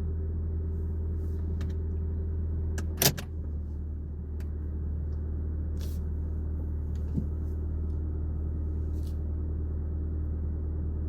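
Steady low rumble, like a vehicle cabin's running hum, with one sharp click about three seconds in and a few faint ticks.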